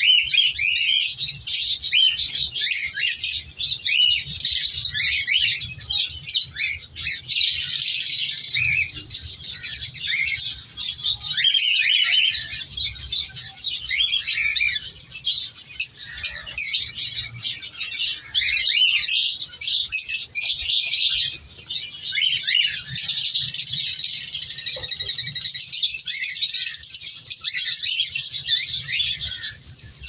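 A flock of cockatiels chirping and calling without pause, many short high calls overlapping into a continuous chatter.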